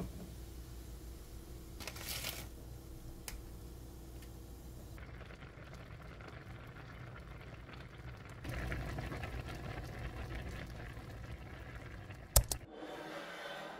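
A pot of spicy fish cake soup with ramen boiling hard, a steady bubbling that gets louder just after the middle. A single sharp click near the end.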